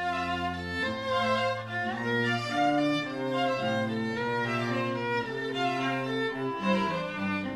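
Background music: a melody of held notes that changes pitch every half second or so, over lower sustained notes.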